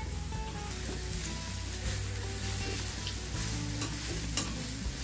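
Beef slices sizzling on a hot grill pan over a tabletop gas burner, a steady frying hiss with a few light clicks of utensils against the pan. A faint melody plays underneath.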